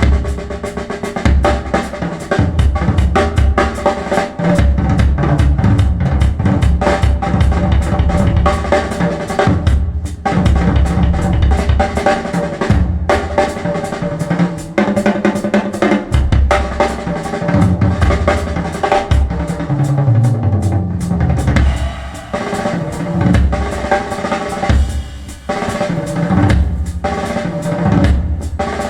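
Drum-heavy music played back over a pair of Bowers & Wilkins 803 D4 floor-standing speakers, with loud, rhythmic kick and snare drum hits under sustained tones.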